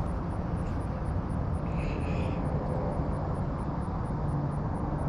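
Steady low drone of a distant engine, with a faint high chirp about two seconds in.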